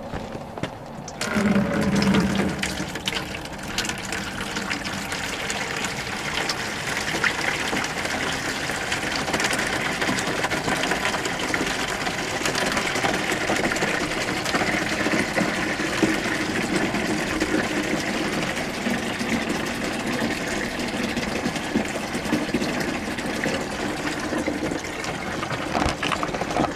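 Rainwater being poured from a plastic jug into a plastic bucket. The steady pouring starts about a second in and keeps going.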